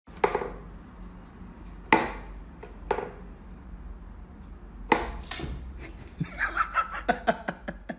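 Carno wooden whack-a-mole cat toy clacking: sharp wooden knocks, a second or two apart, as the pegs are pushed and the pop-up moles are struck. Near the end comes a quick run of clicks.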